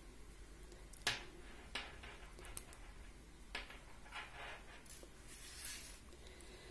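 Faint clicks and rustles of knitting needles and yarn as stitches are worked, a few scattered taps with the sharpest about a second in.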